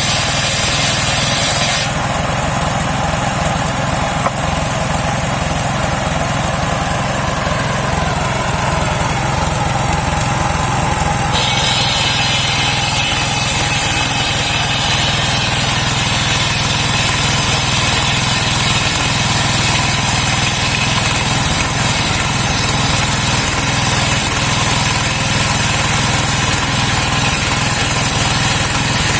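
Engine-driven homemade circular sawmill running steadily, its engine humming under a steady high whine from the spinning blade. The higher-pitched part of the sound changes about two seconds in and again around eleven seconds in.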